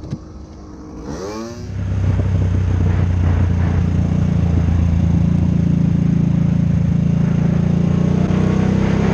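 Motorcycle engine running steadily while riding, picked up by a camera mounted on the bike. It comes in loud about two seconds in, after a brief falling sweep, and holds an even pitch.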